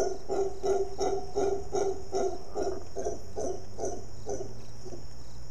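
Howler monkey giving a long run of deep, rhythmic grunting calls, about three a second, fading away near the end.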